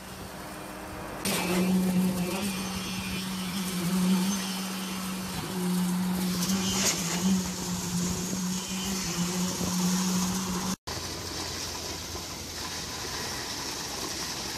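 Concrete-pouring machinery running on a roof slab pour, a steady pitched machine drone that wavers a little. It cuts off abruptly about eleven seconds in and is followed by a lower, steadier machine drone.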